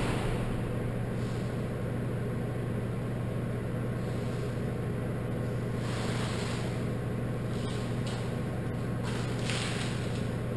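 A steady low mechanical hum from shop equipment runs throughout. A few brief rustling noises and faint light clicks come and go over it, about a second in, around six seconds in and near the end.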